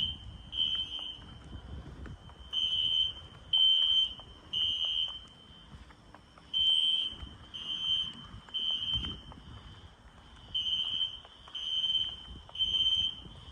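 System Sensor SpectrAlert fire alarm horn sounding the temporal-three evacuation signal. It gives three high-pitched half-second blasts, pauses, and repeats the group about every four seconds.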